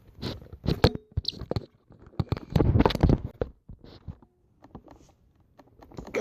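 Irregular clicks, knocks and rustling of things being handled close to the microphone.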